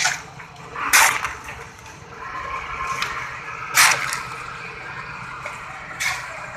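Construction-site work noise: a series of sharp knocks with short ringing, the loudest about a second in and near the middle, with a steady mid-pitched clatter between them.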